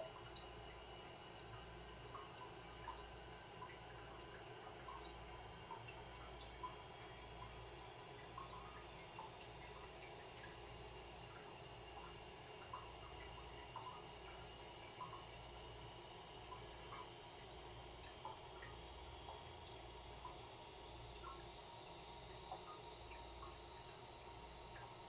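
Toilet cistern quietly refilling, with a faint hiss, a thin tone that rises slightly in pitch as it fills, and scattered small drips.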